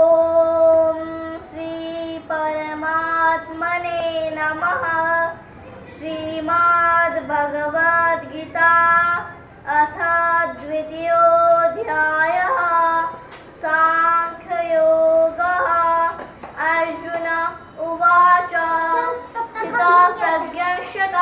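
A girl's solo voice chanting a Sanskrit verse to a sung melody, unaccompanied, in phrases of long held notes separated by short breaths.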